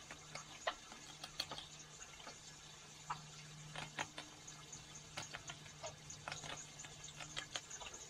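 Faint scattered clicks and crunches from a raccoon eating dry cat food from a plastic dish and stepping on wooden deck boards, over a steady low hum.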